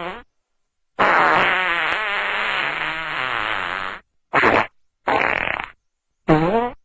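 Fart sound effects: one long, wavering fart of about three seconds, then three short ones in quick succession, each starting and stopping abruptly.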